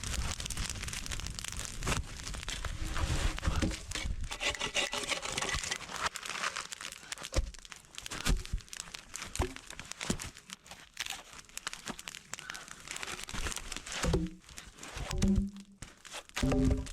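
Crunching and crinkling of snow and branches being handled, with scattered short knocks of wood, most of them in the second half.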